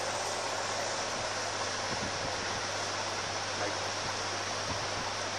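Steady hiss of background noise with a low steady hum underneath; no distinct tool sounds stand out.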